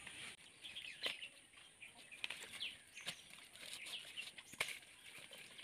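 Faint scattered clicks and knocks as a large katla fish is cut and gutted against an upright bonti blade, with faint birds chirping behind.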